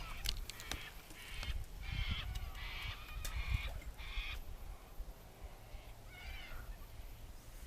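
Wild birds calling: thin arched chirps, then a run of harsh, screechy calls in the middle and one more chirping call near the end, over a low rumble.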